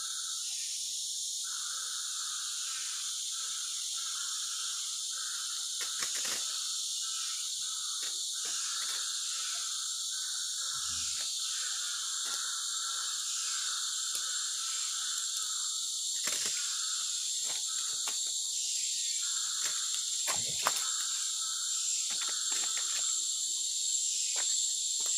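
Tropical rainforest insect chorus: a steady, shrill, high-pitched buzz, with a lower chirring trill that pulses on and off over it. A few brief clicks stand out now and then.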